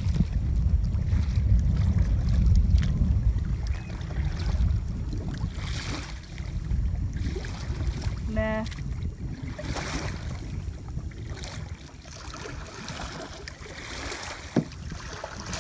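Water splashing and swishing as a double-bladed kayak paddle dips into choppy river water, a stroke every few seconds, over wind buffeting the microphone. The wind is heaviest for the first few seconds and then eases.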